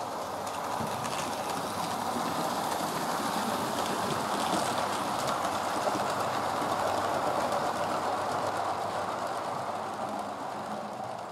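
OO gauge model train, a Hornby Thompson A2 Pacific locomotive hauling a rake of coaches, running along the layout's track with a steady rumble of wheels and motor. The rumble grows a little louder, then fades near the end as the train runs away.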